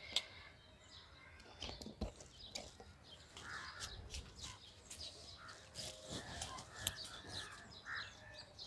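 Crows cawing a few times in the background, with handling noises of light rustling and small clicks as a yellow sticky trap is tied up; a sharp click about seven seconds in is the loudest sound.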